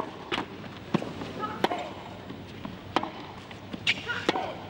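Tennis ball struck back and forth in a baseline rally on a hard court: a series of sharp racket hits about one a second.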